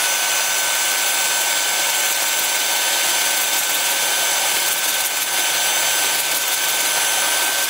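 Drill spinning a 2-inch power-sanding disc against a Red Mallee burl turning on the lathe: a steady sanding hiss with a thin whine through it.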